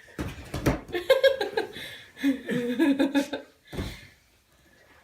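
A person laughing for about three seconds, followed by one short burst just under four seconds in.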